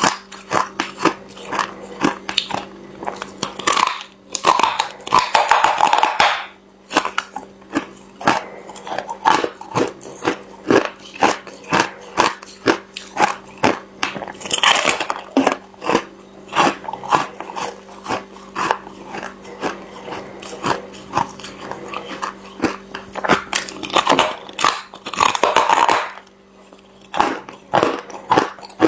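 Ice being bitten and chewed close up: a rapid run of sharp, crackling crunches. Three spells of dense grinding, and short pauses between bites, break up the crunching. A steady low hum runs underneath.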